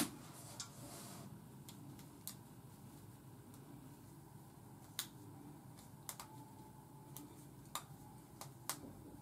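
Faint, scattered clicks and light rustling as fingers work small rubber bands onto short locs, over a faint steady room hum.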